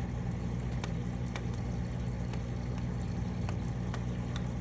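Clown loaches clicking as they eat, from grinding their pharyngeal teeth: a handful of sharp, irregular clicks heard through the thick aquarium glass. Under them runs the steady hum of the tank's filters.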